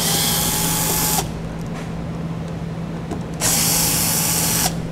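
Cordless drill/driver running in two bursts of about a second each, a few seconds apart, backing out the fasteners that hold a plastic under-bumper access panel.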